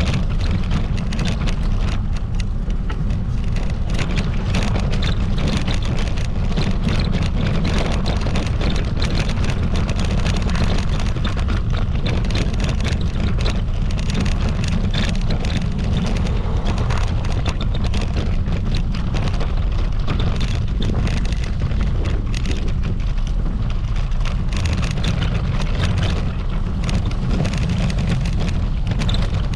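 Steady low rumble with a crackling hiss above it: wind buffeting the microphone while travelling.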